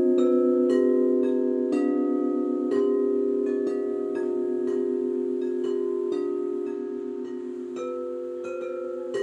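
Frosted crystal singing bowls struck with mallets, about two strikes a second. Each strike adds a new pitch, and the tones ring on and overlap into a sustained chord that slowly softens.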